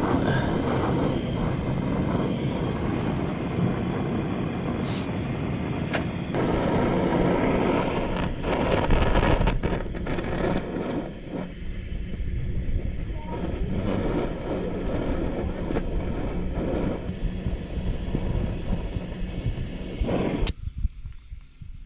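Gas torch flame running with a steady roar while it heats a bent steel strap bolt, with a few sharp metal knocks; the roar cuts off suddenly near the end.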